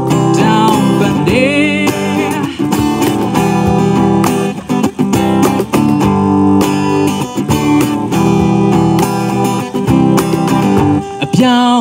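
Live acoustic song: an acoustic guitar strummed while a man sings into a microphone, with a cajon tapping out the beat.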